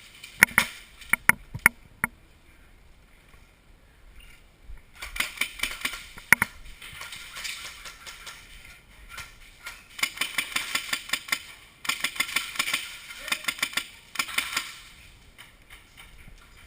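Airsoft guns firing: a few sharp single shots in the first two seconds, then long strings of rapid shots.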